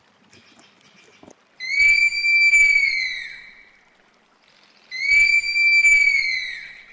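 Three-toed sloth calling: two long, high whistles about three seconds apart, each held level and then falling away at the end.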